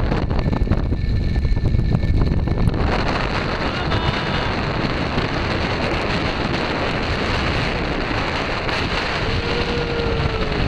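Wind buffeting the microphone over the steady rush of Niagara Falls and the churning river below. The low wind rumble is heaviest for the first three seconds, then the even rush of water takes over.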